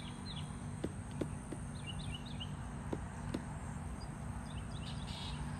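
A pileated woodpecker pecking at wood as it feeds: about five sharp, irregular knocks in the first few seconds. Two short runs of high chirps from a smaller bird come through, one around two seconds in and one near the end, over a steady low outdoor hum.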